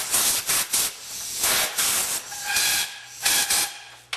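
Compressed-air blow gun blasting in about four short bursts of loud hiss, some with a faint whistle.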